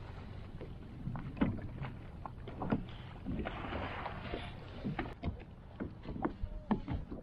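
Scattered small knocks and clicks of fishing gear and a landing net being handled aboard a kayak, over a steady low rumble of wind and water. A brief hiss comes a little after three and a half seconds in.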